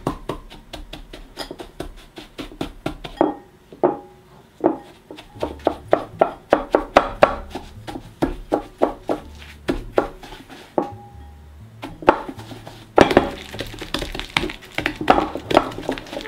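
Creaming softened butter and raw sugar by hand with a wire whisk: fast, rhythmic clicking and scraping of the whisk against the bowl, about five strokes a second, louder in the last few seconds.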